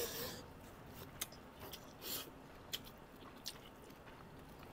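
Faint close-miked eating sounds: chewing with scattered wet lip smacks and mouth clicks a second or so apart, and a short breathy sound about two seconds in.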